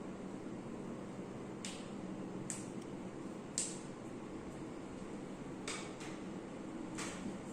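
Five short, sharp knocks from hands at work during a massage, irregularly spaced, over a steady low hum.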